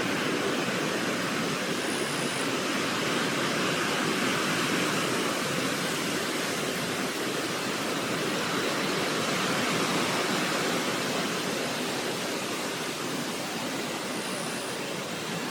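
Steady rush of flowing river water, an even noise without rhythm, with two brief faint high chirps, one about two seconds in and one near the end.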